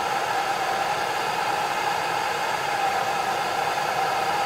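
Gas torch flame heating a homemade aeolipile (Hero's steam engine) whose steam jets are blowing out and spinning the attached RC helicopter rotors: a steady rushing hiss.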